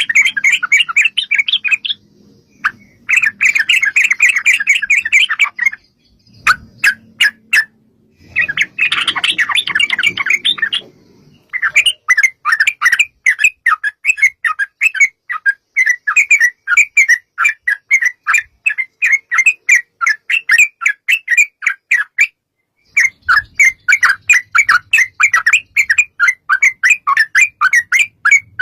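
Yellow-vented bulbul (trucukan) chattering in long, rapid runs of short repeated notes, the rolling 'ropel' song. It comes in bouts of a few seconds with brief pauses between them.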